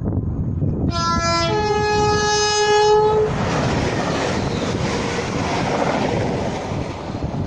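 Train sounding a two-tone horn, a short lower note and then a longer higher note, followed by the loud rushing noise of the train passing through the station.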